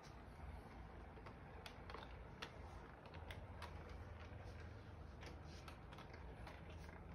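Faint toy electric train running on its track: light, irregular clicks of the wheels over the rail joints, one or two a second, over a steady low hum.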